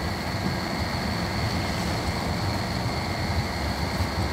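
Marine engines running steadily alongside a ship: a continuous low rumble with a faint, steady high whine over it.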